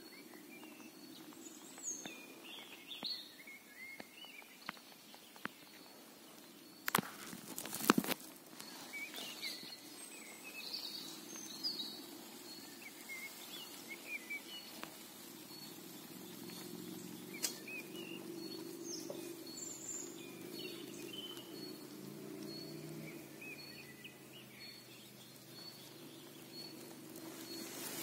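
Outdoor ambience: small birds chirping on and off over a faint low hum, with a short high note repeating about once a second. Two loud sharp knocks come about a quarter of the way in.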